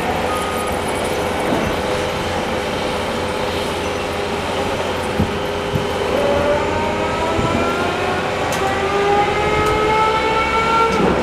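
Heavy construction machinery running, with a last reversing-alarm beep at the very start. From about six seconds in, a machine's whine rises steadily in pitch, then drops away suddenly at the end. A few knocks come around five seconds in.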